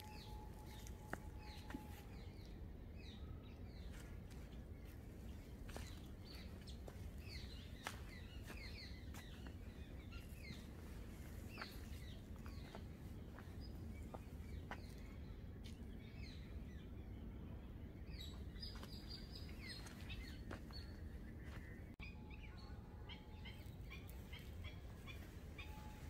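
Many small birds chirping and twittering, short overlapping calls scattered throughout, over a faint steady low rumble of outdoor background noise.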